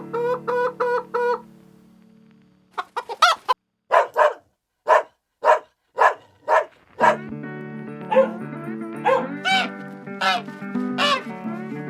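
Chickens clucking: a run of short, separate calls, about two a second, with longer rising-and-falling calls later on. Background music comes in about seven seconds in, under the calls; the first second or so holds a short run of repeated notes.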